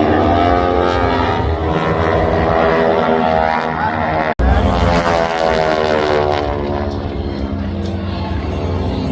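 Propeller airplane engine droning as the plane flies past, its pitch sliding down as it goes by. The sound drops out for an instant near the middle, then a second pass follows with the pitch falling again.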